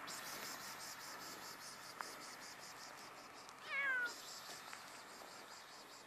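Kitten meowing once, a short call about four seconds in, its pitch wavering.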